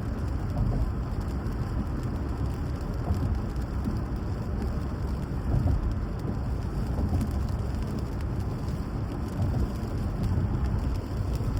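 Steady rain falling, an even hiss with a heavy low rumble underneath.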